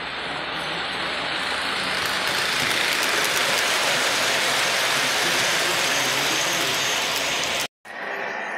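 Lionel O-gauge model freight train running past on its track, a steady mechanical running noise of wheels and motor that swells as the boxcars pass close by. The sound cuts off suddenly near the end.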